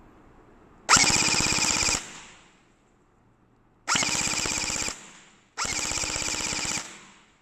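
Lehui Kriss Vector V2 electric gel blaster firing three full-auto bursts of about a second each, its gearbox cycling at about 16 rounds per second.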